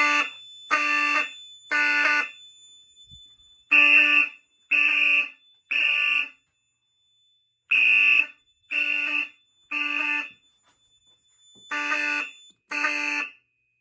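Fire alarm sounders going off in a code 3 (temporal) pattern, set off by a System Sensor 1400A smoke detector under test: three short, buzzy horn blasts about a second apart, then a pause, repeated. The fourth round stops after two blasts. Pretty loud.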